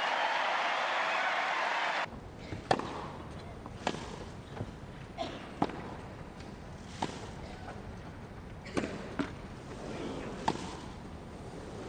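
Loud crowd noise for about the first two seconds, cutting off suddenly. Then a tennis rally over a quiet stadium: rackets striking the ball and the ball bouncing, about ten sharp pops roughly a second apart.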